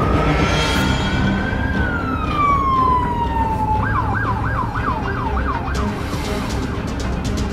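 Police emergency-vehicle siren: one slow wail rising then falling, then switching to a fast yelp of about three sweeps a second that fades out.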